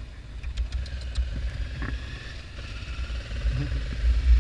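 Motorcycle under way: wind buffeting on the microphone over the low run of the engine, growing louder near the end.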